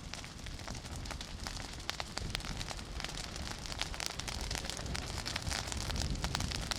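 Fire at a burning fireworks factory, crackling with many sharp, irregular cracks over a steady low rumble.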